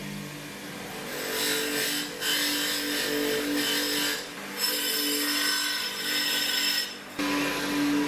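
HBM 150 mm bench grinder running with a wire brush wheel, a small metal part pressed against the spinning wire to scrub it clean. A steady motor hum sits under a loud scratchy hiss that breaks off briefly about two, four and seven seconds in, as the part is lifted from the wheel.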